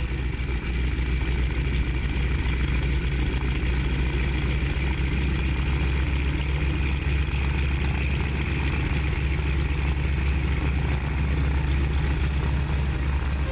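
Boeing Stearman biplane's radial engine running steadily in cruise, heard from the open cockpit as a loud, even drone mixed with the rush of wind.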